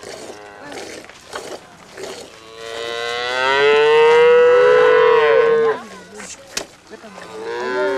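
Cattle mooing: one long, loud call starting about two and a half seconds in and lasting about three seconds, falling away at its end, and a second call starting near the end.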